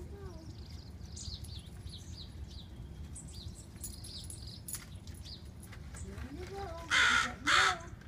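A crow cawing twice, two loud caws in quick succession near the end, with small birds chirping faintly and high-pitched before it.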